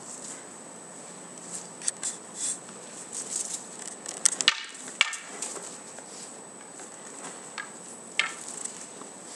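Wooden practice swords (bokken) clacking together in sparring: a few scattered sharp knocks, loudest in a quick cluster just before the middle, over a steady hiss.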